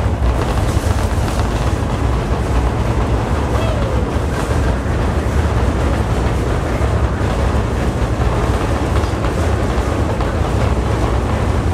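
Earthquake simulator's staged quake: a loud, steady deep rumble with rattling noise over it.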